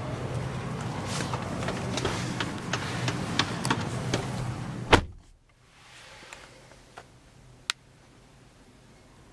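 Steady outdoor hum with scattered clicks, then a 2013 Chevrolet Malibu's door shuts with one loud thump about five seconds in. After it the sound drops sharply to the quiet of the closed cabin, with a few faint clicks.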